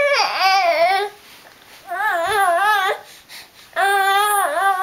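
A baby fussing in three drawn-out, wavering cries, each about a second long, with short pauses between them. The whiny cries are those of an overtired baby who won't settle, soothed right afterwards with a pacifier.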